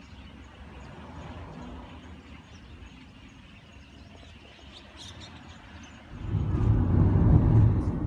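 A steady low rumble of distant road traffic. About six seconds in, a much louder low vehicle rumble swells up, peaks, and starts to ease off near the end.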